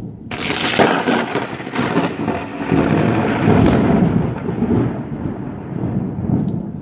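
Thunder from a very close cloud-to-ground lightning strike: a sudden sharp crack about a third of a second in, crackling for a couple of seconds, then a deep rolling rumble that swells and slowly dies away.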